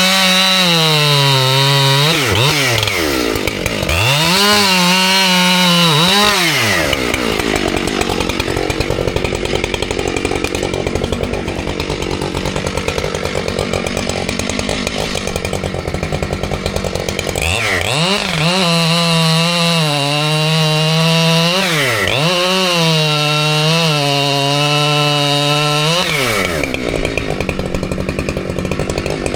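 Husqvarna 592 XP two-stroke chainsaw running at high revs while cutting a large poplar trunk. The revs dip and pick up again several times, with a longer stretch of lower, rougher running in the middle as the chain works under load.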